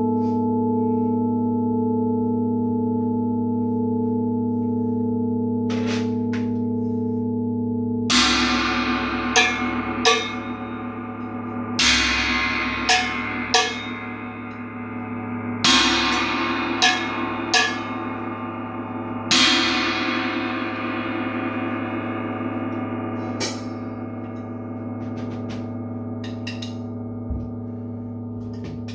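Gong playing: a steady ringing hum, then from about eight seconds in the gong is struck in groups of one strong stroke and two lighter ones, each stroke swelling into a bright wash that dies away slowly. The last two strokes near the end come farther apart and softer.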